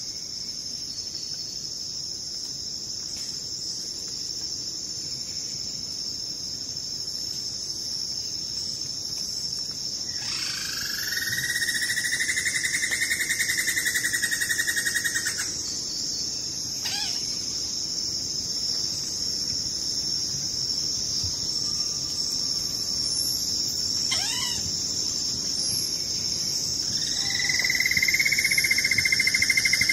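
Insects trilling: a steady high trill throughout, joined by a second, lower pulsing trill that swells in for about five seconds around a third of the way in and returns near the end. A couple of short bird chirps sound in between.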